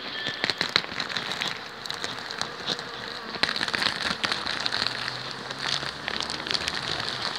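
Honeybees buzzing in an opened hive, with crinkling and crackling of the plastic sheet laid over the frames. A low hum joins about halfway through.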